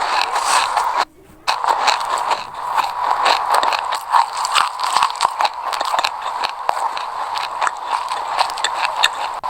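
Close-miked crunching of a mouthful of sesame seeds being chewed: dense, fine crackling, with a brief half-second break about a second in.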